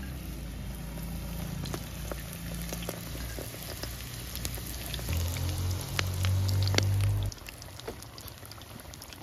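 Spring rolls deep-frying in hot oil in an iron wok, the oil bubbling and crackling with many small pops. A low hum, the loudest sound, comes in about five seconds in and cuts off suddenly about two seconds later.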